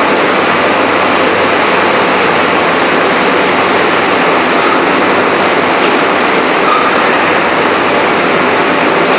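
Steady, loud machinery noise from an open-die forging press and its manipulator running while a red-hot ring is handled, with no distinct press strokes.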